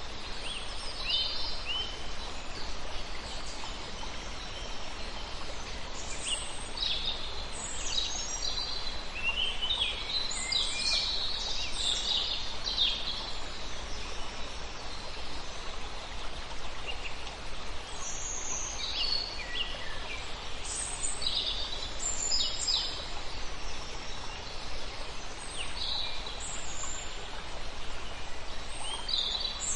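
Birds calling in short, high-pitched bursts that come in clusters, over a steady background hiss of outdoor ambience.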